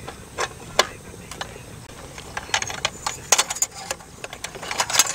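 Light metal and glass clinks and taps from a tin candle lantern being put together: its glass globe sits on the tin base, and the tin shade is fitted on top. The clicks are scattered at first and come thicker in the second half.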